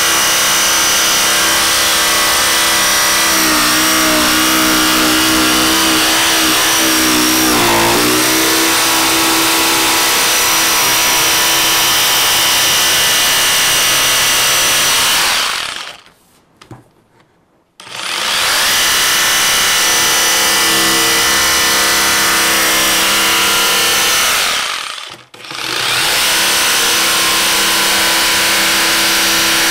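Bosch GST 18V-155 BC cordless brushless jigsaw cutting a curve through 3 cm thick pine with an aggressive blade on zero pendulum setting: a steady motor hum over the blade's sawing. It stops for about two seconds around the middle, starts cutting again, and pauses briefly once more near the end.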